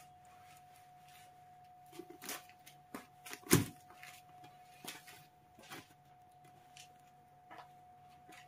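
Kitten eating wet food off a cardboard flap: scattered soft licking and chewing clicks and its paws tapping the cardboard. One louder thump about three and a half seconds in.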